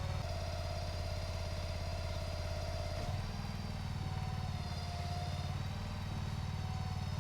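Engine running steadily, its speed stepping up and down a few times.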